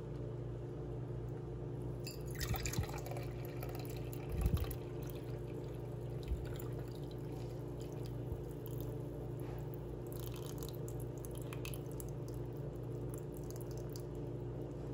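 Milk tea poured through a stainless mesh tea strainer into a cup: trickling and splashing that starts about two seconds in, with a single knock about four and a half seconds in. A steady low hum runs underneath.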